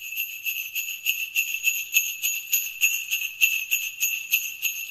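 Sleigh bells jingling, shaken in a steady rhythm of about four shakes a second.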